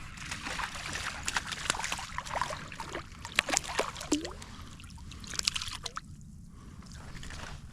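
Water splashing and trickling in short, irregular bursts, with the sharpest splashes clustered around three to four seconds in and again briefly near five and a half seconds, then settling.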